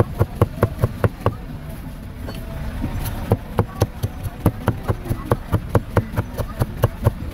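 Knife chopping grilled pork on a round metal pan: quick, even strikes about five a second, with a pause of about two seconds a little over a second in before the chopping resumes.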